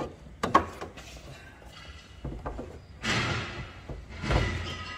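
Sharp knocks about half a second in, then two longer scraping rattles about three and four seconds in, from tools and engine parts being handled during work on a car engine's hoses.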